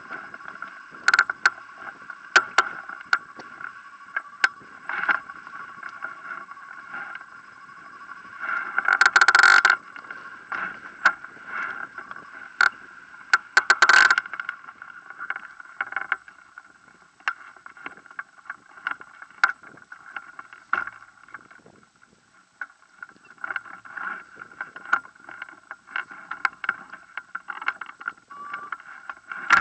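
Camera audio on a hang glider waiting on a hilltop: a steady hum with many small ticks and rattles from the glider's frame and sail, and two louder gusts of wind noise about nine and fourteen seconds in.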